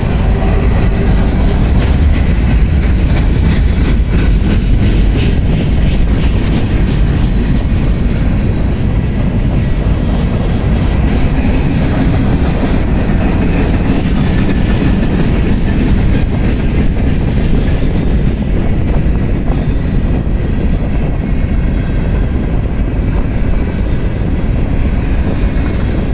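A long freight train of loaded gondola cars rolling past, a steady heavy rumble of steel wheels on the rails with faint clicks, mixed with wind buffeting the microphone.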